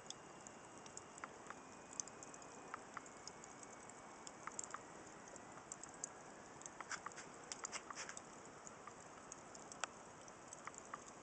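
Wood fire crackling: irregular sharp pops and snaps over a soft steady hiss, with a quick run of pops about seven to eight seconds in.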